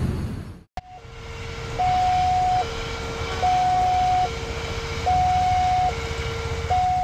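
Indonesian railway level-crossing warning alarm sounding, two electronic tones, one high and one low, alternating about every 0.8 s. It starts about a second in, after a brief burst of road traffic, over the low rumble of a passing train.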